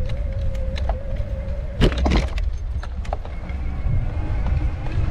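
A motor running steadily with a low rumble and a faint whine. A brief loud knock comes about two seconds in.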